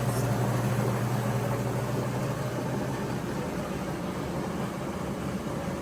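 Krib Bling compact automatic washing machine on its spin cycle: a steady motor hum with an even rush of noise from the spinning drum, easing slightly toward the end.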